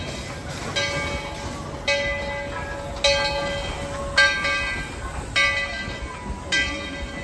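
Steam locomotive bell ringing steadily, one strike a little more than once a second, each ring decaying before the next.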